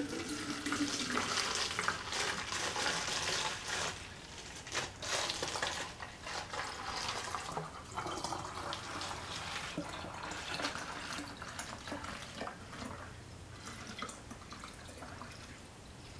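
Water poured from a plastic gallon jug into a narrow-necked bottle, a steady splashing pour that gets quieter toward the end as the flow eases.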